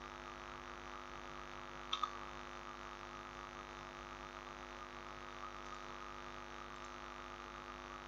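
Steady electrical mains hum in the recording. Two quick computer-mouse clicks come about two seconds in.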